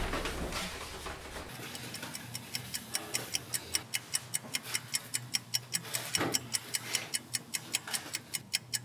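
Clock ticking, an even high click about four times a second, coming in about a second and a half in and growing louder.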